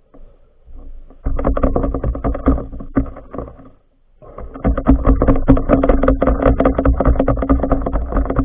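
Boat motor heard underwater: a steady hum with dense crackling and low rumble. It comes in about a second in, breaks off briefly near the middle, then returns.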